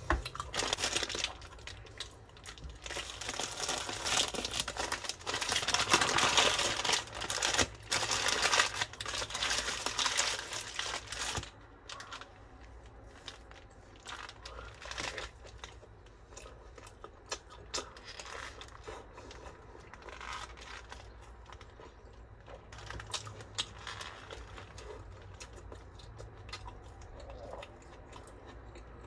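Paper burger wrapper being unwrapped and crinkled close to the microphone for about eleven seconds, followed by quieter scattered rustles and clicks as the wrapped burger is handled.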